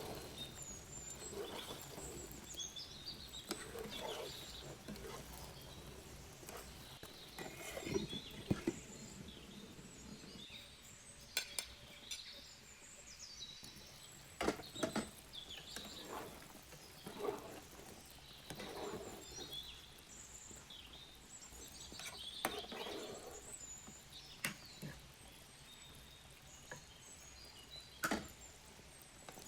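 Metal spoon stirring and scraping in a cooking pot, with irregular sharp clinks of metal on metal.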